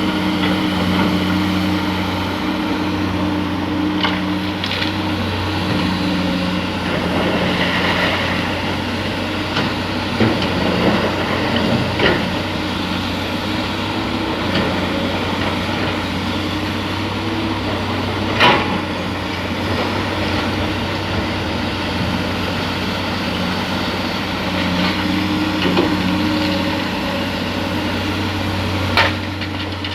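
Excavator's heavy diesel engine running steadily, with a few sharp knocks and clanks scattered through it.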